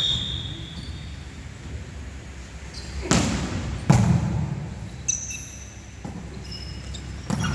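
A volleyball struck hard twice, about three and four seconds in, then again near the end, each hit echoing in a large gym hall. Short high sneaker squeaks come at the start and from about five seconds in.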